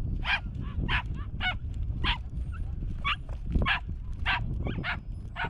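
A dog barking over and over in short, high yaps, about two a second, over a low steady background noise.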